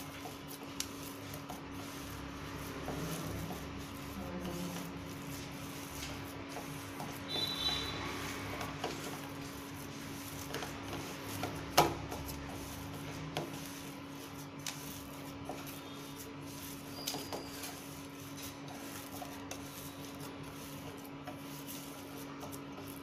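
Hands kneading rice-flour dough in a stainless steel bowl: soft rubbing and squishing with scattered light clicks against the bowl, over a steady low hum. One sharper knock about twelve seconds in is the loudest sound.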